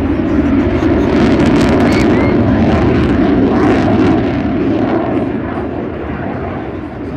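CF-18 Hornet fighter jet's twin turbofan engines heard overhead in a demonstration flight: a loud, rough jet rumble with a crackling edge, strongest in the first four seconds and then fading as the jet moves off.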